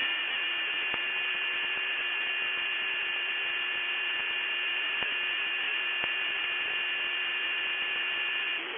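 Emergency Alert System attention signal: a steady electronic tone over hiss that announces a severe thunderstorm warning, cutting off shortly before the end.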